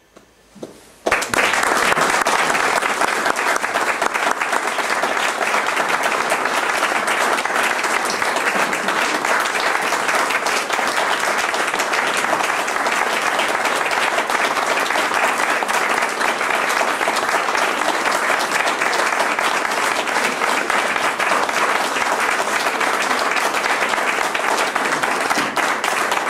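Audience applauding at the end of a performance. The clapping breaks out suddenly about a second in and keeps up steadily.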